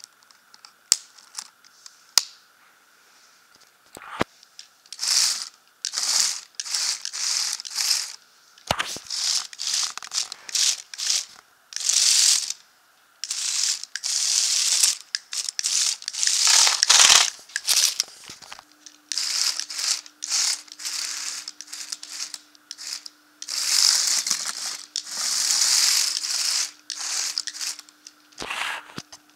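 A few sharp plastic clicks as a Lego tracked vehicle's suspension is pressed by hand, then its plastic tracks and geared motors running in repeated short stop-start bursts, a hissy rustling clatter as it drives over carpet. A faint steady hum joins about two-thirds of the way through.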